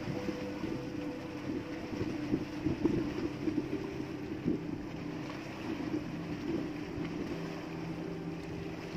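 A small boat's engine running steadily, with irregular water splashing at the hull and outrigger.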